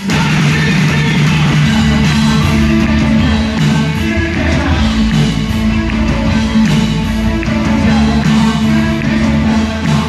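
Live new wave rock band playing through a concert sound system: electric guitar, drums and a steady bass line, with singing.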